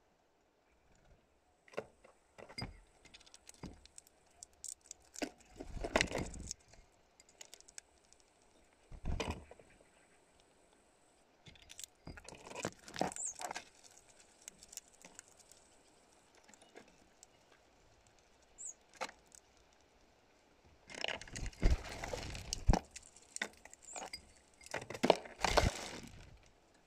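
Great tits landing, hopping and pecking on a plastic feeder tray and clear plastic cups close to the microphone: irregular clusters of clicks, claw scrabbling and wing flutters, the busiest and loudest stretch near the end.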